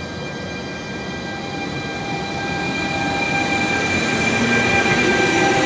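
Trenitalia E.464 electric locomotive moving past at low speed, its traction equipment giving several steady high-pitched whines over the rumble of wheels on rail. It grows louder as it draws close.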